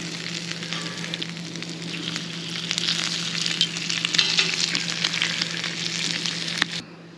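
Bacon sizzling and popping on a hot cast iron griddle over charcoal, a dense crackling hiss that cuts off abruptly near the end.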